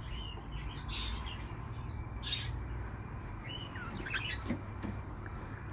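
Budgerigars chirping in short, scattered calls, with a small cluster of chirps about four seconds in.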